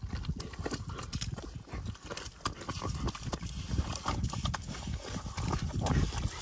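Belgian Malinois digging and pawing in wet mud: irregular wet slaps, scrapes and knocks of paws and muzzle in the mud, over a steady low rumble.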